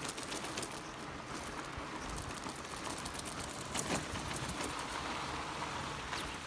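Fat bike rolling over a dirt road: a steady rush of tyres on the ground with light rattling and clicking from the loaded bike, and one sharper click about four seconds in.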